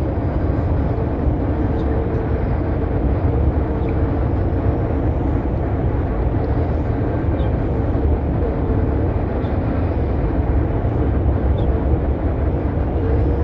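Steady low rumbling outdoor background noise, with no single distinct event.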